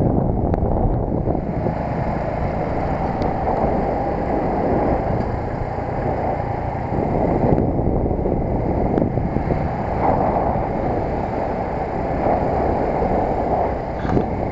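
Steady wind rush buffeting the camera microphone on a moving underbone moped, a continuous low noise with no clear engine note standing out.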